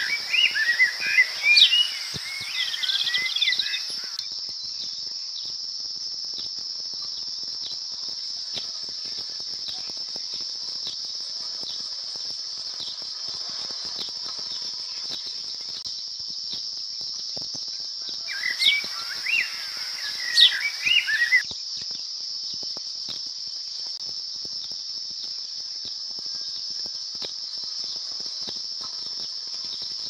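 Steady, high-pitched insect drone like crickets running throughout, with a small bird's quick chirping over it for the first few seconds and again for about three seconds past the middle.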